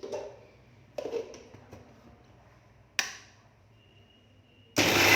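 Three short knocks, at the start, a second in and three seconds in, as the mixer grinder jar is handled. Near the end the mixer grinder switches on with a sudden loud whirr, grinding wheat grains, sesame seeds and peanuts with a little milk into a paste.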